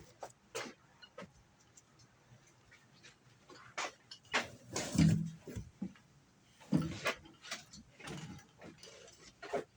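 Irregular clicks, scrapes and short creaks of a screw being turned by hand into a wooden table.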